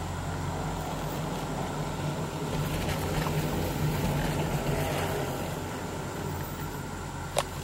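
Chairlift ride: a steady low mechanical hum from the running lift's cable and sheaves, swelling slightly in the middle, with one sharp click near the end.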